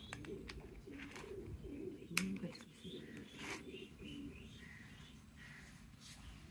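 Pigeon cooing in low, repeated notes, with a sharp click about two seconds in and a brief rustle about a second later.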